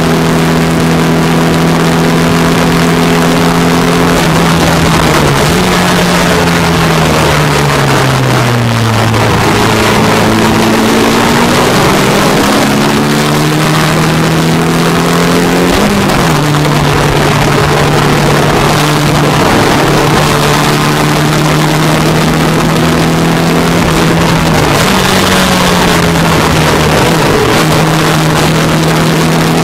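Racing MGA's four-cylinder engine running hard, heard from the open cockpit over rushing wind. About five seconds in, the engine note falls as the car brakes and slows for a corner. It then climbs again as the car accelerates and holds high and steady, with another short dip and rise near the end.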